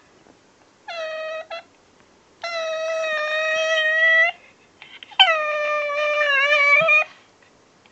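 Pekingese puppy 'talking': three drawn-out, high whining calls, a short one followed by two long ones held at a steady pitch, the last one wavering near its end.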